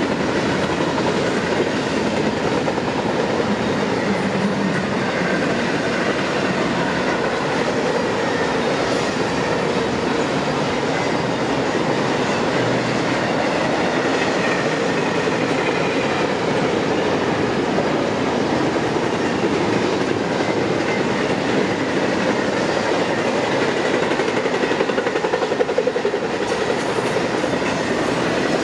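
A train passing, its steel wheels running on the rails in a steady, unbroken noise.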